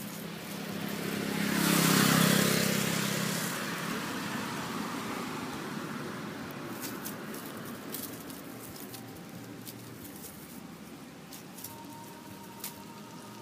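A motor vehicle passing by: its engine noise swells to a peak about two seconds in and fades away over the next couple of seconds, followed by scattered light clicks and rustles.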